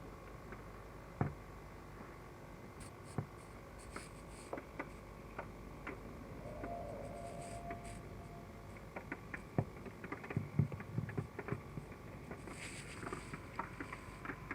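Irregular drips and taps of rainwater falling onto surfaces in heavy typhoon rain, thickest about ten seconds in, over a faint steady hum.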